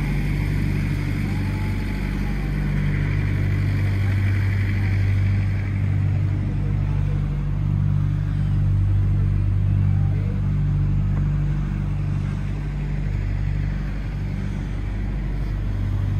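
Steady low engine hum at a constant pitch, with no revving.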